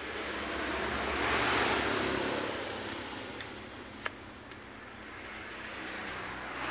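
Passing road traffic: a vehicle's noise swells and fades over a few seconds, and another begins to rise near the end. There is a single sharp click about four seconds in.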